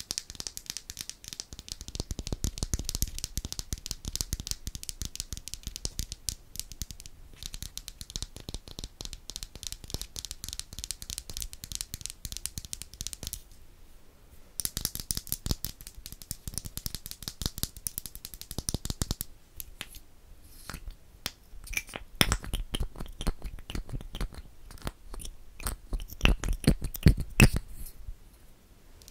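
Long fingernails rapidly tapping and scratching on the metal mesh grille of a Blue Yeti microphone, right at the capsule, in a dense stream of fine clicks. After a short pause midway, the scratching resumes. From about two-thirds of the way in it turns to sparser, heavier taps with more low end.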